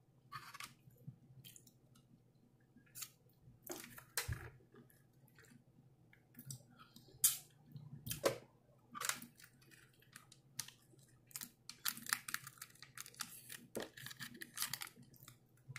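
Close-miked eating sounds: mouth-closed chewing with irregular short clicks and crackles, from a plastic fork tapping and scraping in a gravy cup and on a plastic tray. The clicks come thickest in the last few seconds.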